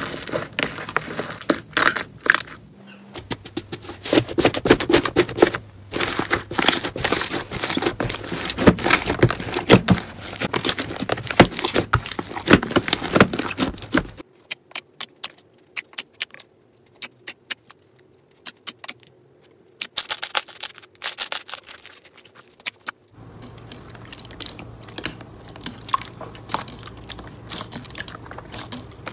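Hands squeezing and kneading slime, with dense crackling and popping clicks from thick green foam slime. Partway through this gives way to a few sparse pops with near quiet between them, then a softer crackle returns near the end.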